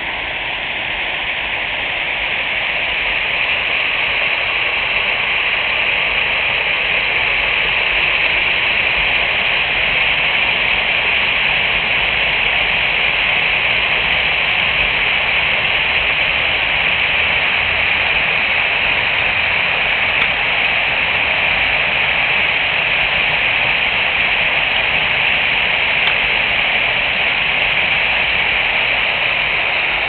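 Waterfall: a steady, loud rush of falling water, swelling a little over the first few seconds and then holding even.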